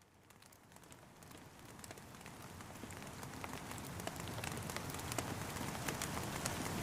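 Rain falling, a steady hiss with many individual drops tapping, fading in from silence and growing steadily louder.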